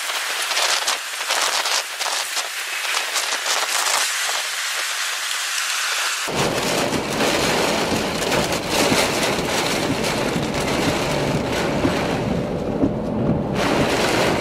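Heavy wind-driven rain: at first a hiss full of crackles, then, after a cut about six seconds in, a fuller, denser rush with a low rumble as rain hits a vehicle driving on the interstate.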